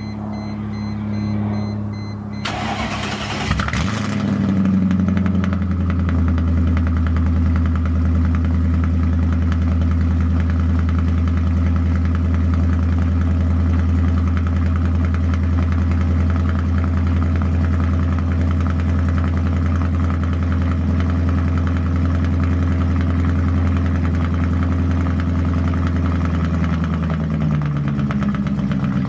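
Mercedes W210 E55 AMG V8 cranked over and catching about three seconds in, then idling steadily with no mufflers on the exhaust; its pitch drops near the end as the idle settles.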